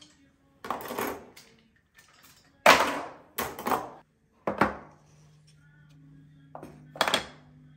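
Cutlery and wooden-handled kitchen utensils being set into a plastic drawer organiser: about five separate knocks and clatters, the loudest near the middle.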